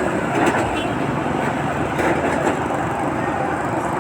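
Steady road traffic noise: vehicles running along a busy road, with a few faint clicks.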